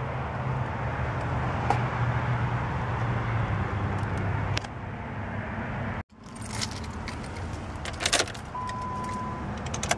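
A steady low hum, then car keys jangling and clicking as the key goes into the ignition of a 2002 Nissan Sentra SE-R Spec V. Then, about eight and a half seconds in, a steady high warning tone starts: the key-in-ignition reminder with the driver's door open.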